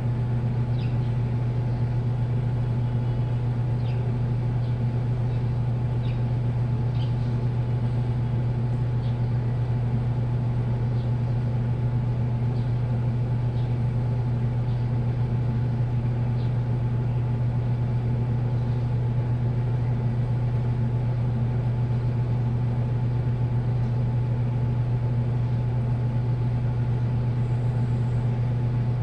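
Washing machine running with its drum spinning at a steady speed: a constant low hum with faint light ticks now and then in the first half.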